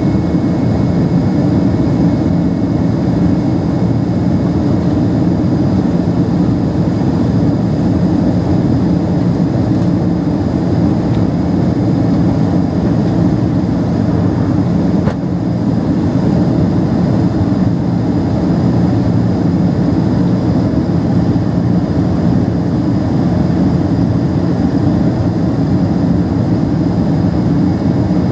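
Steady roar of a Boeing 767-300ER's jet engines and rushing air heard from inside the cabin in climb, low and even, with a faint steady high whine above it.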